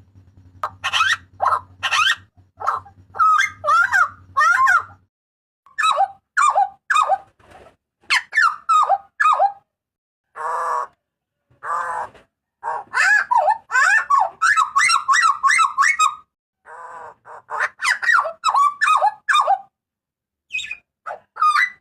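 Butcherbird calling loudly in quick runs of sharp, sliding whistled notes, broken by short pauses, with a couple of harsh, rasping notes midway.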